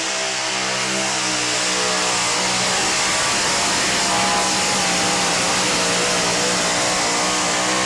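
Two-wheel-drive pulling truck's engine running hard under load as it drags a weight-transfer sled down the dirt track, a steady loud tone that wavers slightly in pitch.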